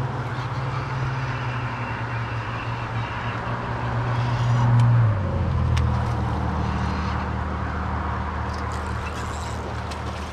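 A road vehicle passing on the highway beside the river: a low engine drone that grows louder to a peak about five seconds in, drops in pitch as it goes by, then carries on lower and fainter. The river current makes a steady hiss underneath.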